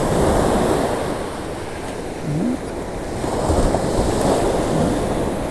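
Ocean surf breaking and washing up the sand, with wind buffeting the microphone. The surf swells louder at the start and again about three and a half seconds in.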